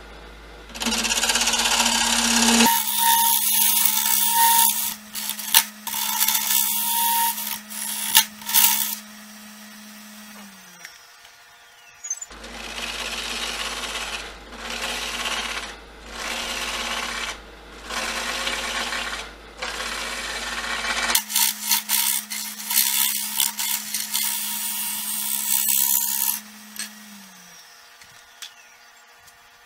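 Round cutter scraping the inside of a piece spinning on a Grizzly wood lathe: loud hissing cuts in bursts over the lathe's steady hum, which winds down around the middle and again near the end. In between, a hiss pulses on and off evenly, about once a second.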